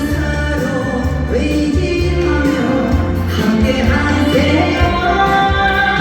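A singer singing a Korean pop song live over music with a steady bass, the voice sliding between held notes.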